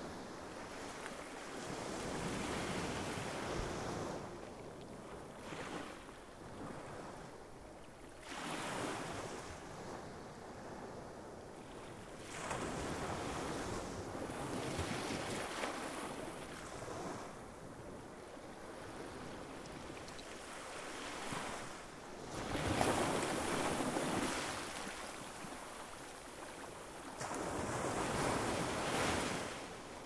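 Small sea waves breaking and washing up on a beach, swelling and falling back every few seconds; the loudest wave comes about three quarters of the way through.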